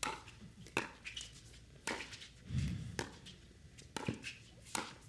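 Pickleball paddles striking the hard plastic ball in a rally: a string of sharp pops about one a second, with two in quick succession near the end. A short low thud sounds about halfway through.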